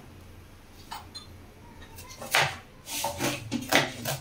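Kitchen knife cutting an onion on a plastic cutting board: a run of short, sharp chops begins about two seconds in, after a faint click about a second in.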